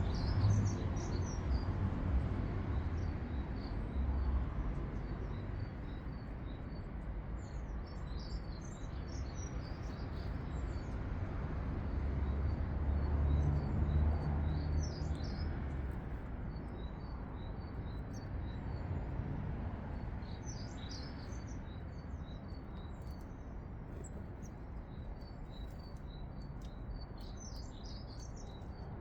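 Small garden songbirds chirping and calling, short high notes coming and going in scattered runs, over a steady low rumble that swells around the middle.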